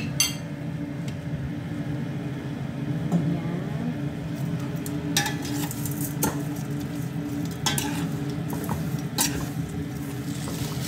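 Metal spoon stirring spiced raw chicken pieces in a stainless steel pot to mix in the spices, with several sharp clinks and scrapes of spoon on pot over a light sizzle of frying. A steady low hum runs underneath.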